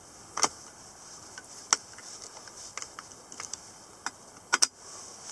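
Hand screwdriver turning screws into a metal seat-release bracket: scattered sharp clicks and fainter ticks of the tip and screws, the loudest about half a second in, near two seconds, and a quick double click near the end, as the screws are drawn snug.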